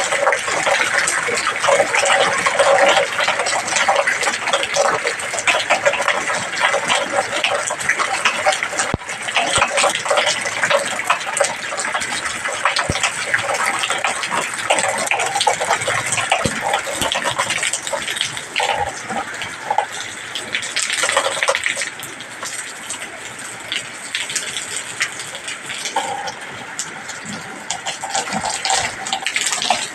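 Heavy rain pouring down, a dense steady patter and gush of water that eases somewhat about two-thirds of the way through.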